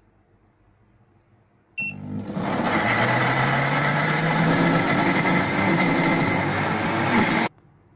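Electric countertop blender: a short beep about two seconds in, then the motor starts and runs loud and steady, blending pumpkin chunks with condensed milk and water, until it cuts off suddenly near the end.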